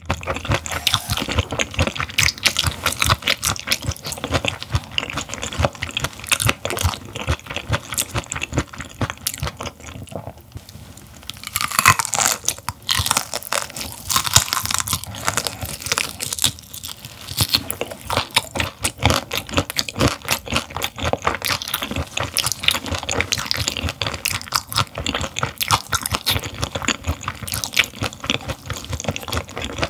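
Close-miked chewing of raw gizzard shad: a dense, wet crunching with many small clicks as the fish and its small bones are chewed. A brief lull comes about ten seconds in, then a loud fresh bite.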